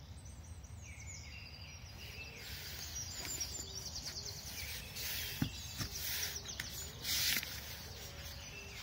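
Songbirds singing in a dawn chorus, with repeated high trills and chirps. Between about five and seven and a half seconds in come a few louder rustles and a sharp click of handling noise close to the microphone.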